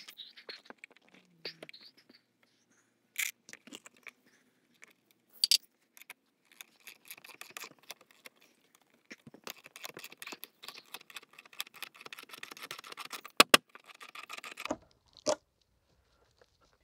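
Metal clinking and scraping from an antenna pole being seated in a metal wall bracket and the bracket's clamp screw being turned, with a few sharp knocks. The rattling is densest through the middle and second half, then stops.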